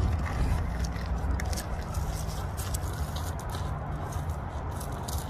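Steady, uneven low rumble of wind on a phone microphone, with scattered faint crackles.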